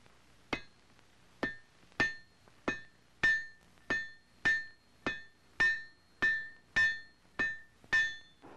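Hand hammer blows forging a glowing iron rifle breech plug on an anvil: thirteen evenly paced strikes, a little under two a second, each with a short metallic ring.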